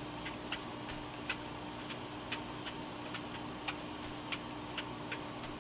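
Tombow watercolour marker tip tapping and flicking on card stock in short colouring strokes: light clicks about three times a second at uneven spacing, over a faint steady hum.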